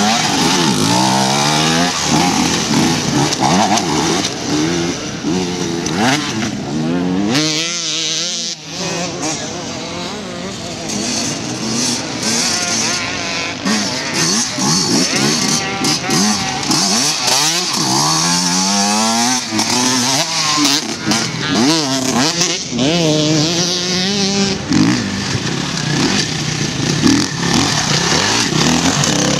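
Enduro dirt bikes revving hard over tyre obstacles, one rider after another, the engine pitch rising and falling again and again with a short easing-off about eight seconds in.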